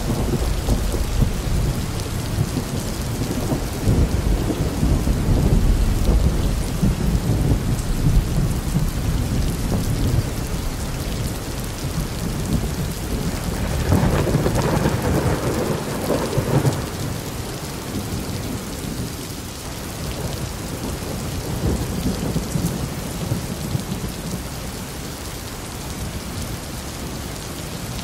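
Steady rain hissing with rolling thunder rumbling low beneath it. About halfway through, a louder peal of thunder swells and dies away, and the rumble is quieter after it.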